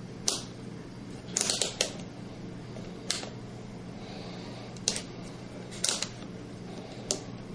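A series of sharp clicks and taps, some single and a quick cluster about one and a half seconds in, from handling a multimeter, its test leads and a bare drill motor, over a steady low hum.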